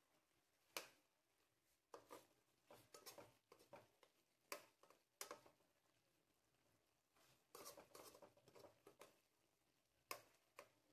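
Faint, scattered clicks and short scrapes of a slotted metal spoon against a metal wok as it stirs a saucy braise, coming in small clusters.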